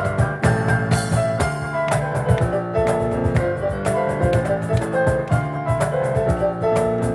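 Piano and cajón playing an instrumental together: a busy run of piano notes over quick, steady cajón strikes.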